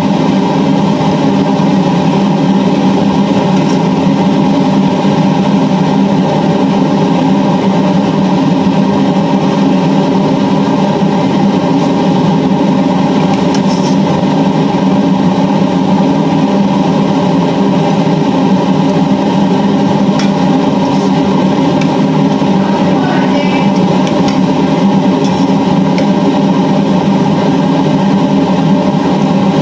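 A loud, steady mechanical drone with a constant hum that does not change.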